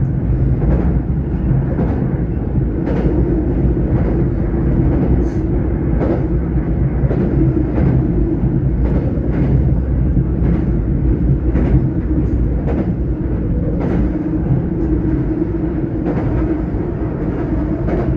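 Tokyo Metro 05 series subway train running at speed: a steady low rumble of wheels on rail with a hum, broken by sharp clacks about once a second as the wheels cross rail joints.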